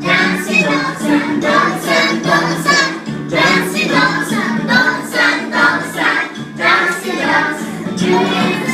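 Music: a children's action song sung by a group of voices over a steady accompaniment.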